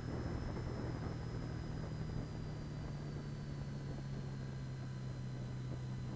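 BMW R1200GS boxer-twin engine running steadily on the move, its note easing slightly lower a little over halfway through, with a faint high whine falling alongside it over a rush of wind and road noise.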